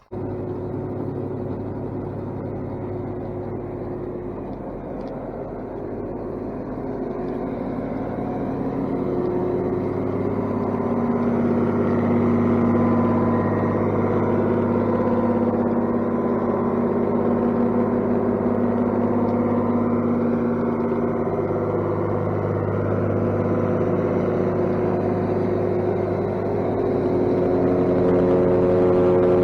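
Engine-driven farm machinery running steadily while milling grain, with a pitched engine hum that grows louder over the first ten seconds or so. It dips briefly near the end and then picks up again.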